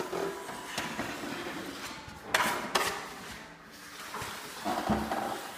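Drywall taping knife scraping and wiping joint compound along Strait-Flex corner tape: a run of rough strokes, with two sharper scrapes about halfway through.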